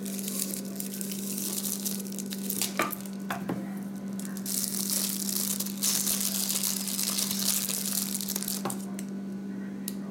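Clear plastic wrap crinkling and crackling as a wax melt is unwrapped by hand, with a few sharp snaps along the way. It dies down near the end.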